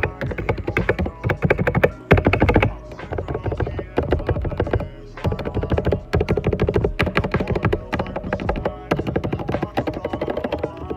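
Rapid typing on a Ducky One 2 Mini mechanical keyboard with Cherry MX Silent Red switches, with short breaks in the keystrokes about three and five seconds in. Music plays underneath.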